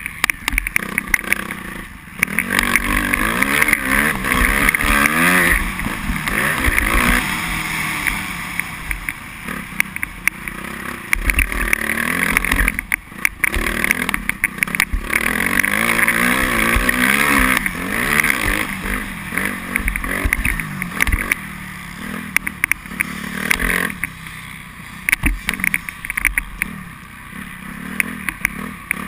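Suzuki RM-Z250 four-stroke single-cylinder motocross bike engine being ridden, heard close up from the bike. Its pitch rises and falls again and again with the throttle, and it drops away briefly a few times.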